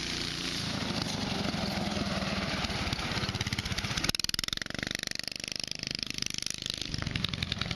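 Predator 420cc single-cylinder four-stroke engine on an off-road go-kart running as the kart drives, with a rapid, even beat of exhaust pulses. The sound changes abruptly about four seconds in.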